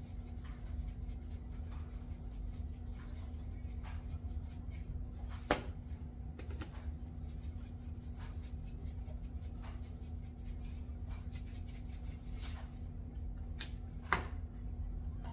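Small kitchen handling sounds over a steady low hum: faint taps and rustles, with two sharp clicks, one about five and a half seconds in and one near the end.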